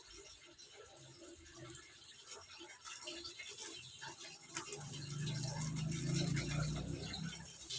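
Faint clicking and scraping of metal parts being handled as a silencer is fitted onto a PCP air rifle. Midway through, a low hum rises and lasts about two and a half seconds.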